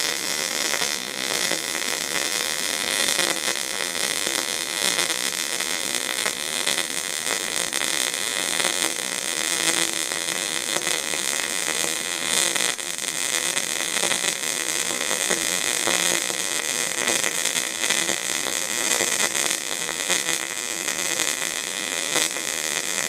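MIG welding arc from an Eastwood MIG 250 feeding 0.025 in wire into steel, a steady crackle as a vertical-up weld is run without a break.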